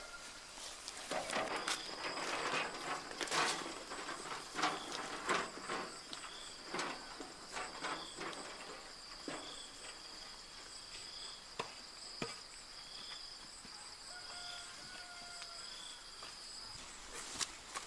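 Rustling and knocking of cut brush and a wheelbarrow being handled through the first several seconds, over a steady high insect drone. Short high chirps repeat every second or two.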